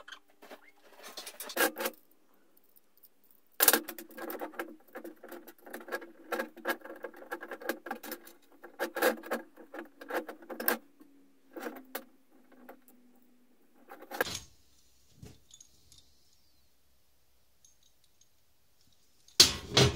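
Small metal hardware (nuts, bolts and ball bearings on a steel shaft) clinking and rattling as it is handled on a sheet-metal surface, in bursts with pauses. A sharp knock comes near the end.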